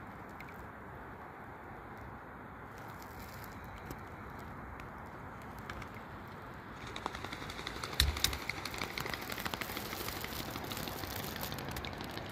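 Kayak paddling on a calm lake: a faint steady hiss of drifting at first, then from about seven seconds in a dense patter of water dripping and splashing off the paddle. A single thump comes about eight seconds in.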